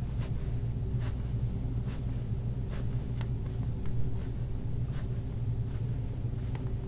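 A steady low hum, with a few faint, scattered clicks and rustles over it.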